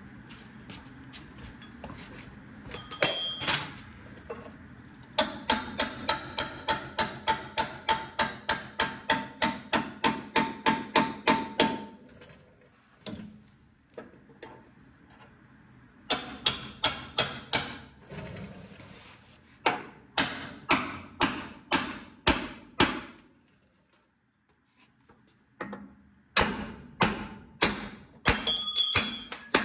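Hammer blows on steel, driving a chisel into the welded top-hat section of a 1950 Ford F1's frame. Runs of quick strikes, about three a second, each with a metallic ring, are broken by short pauses.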